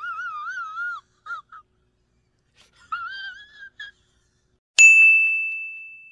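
Two short warbling, whistle-like tones, one at the start and one about three seconds in. Then a single bell-like ding about five seconds in that rings out slowly, typical of a video editor's sound effects over title cards.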